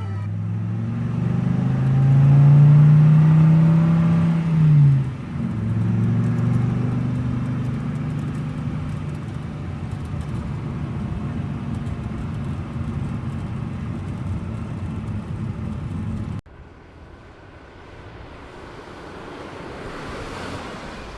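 Vehicle engine running, revving up and easing back down a few seconds in, then running steadily. It cuts off suddenly about sixteen seconds in and is followed by a quieter engine sound that slowly builds.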